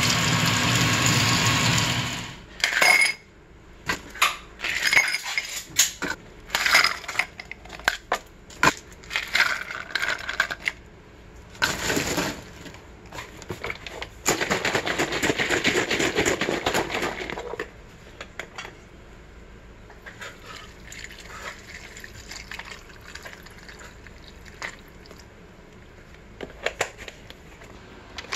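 A run of many sharp clinks as ice cubes are dropped into a glass mug, between a couple of seconds of steady hiss at the start and a few seconds of steady rushing noise past the middle.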